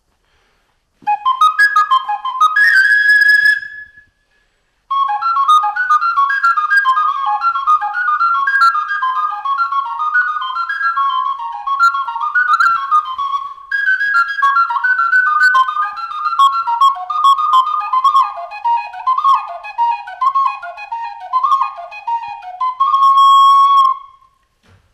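A handmade Sicilian friscalettu, a cane fipple flute with seven front and two back finger holes, played solo. A short phrase ends on a held high note, there is a brief pause, and then comes a fast, ornamented melody of quick running notes that closes on a held lower note. It is the freshly finished, newly tuned flute being tried out.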